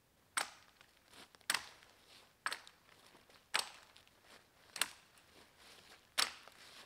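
Condor Pack Golok chopping a branch: six sharp blade strikes into wood, about one a second.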